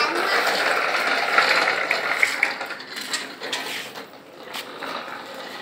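Homemade metal pedal toy tractor clinking and rattling, metal parts knocking together as it is ridden. The sound is louder at first and eases off after about three seconds.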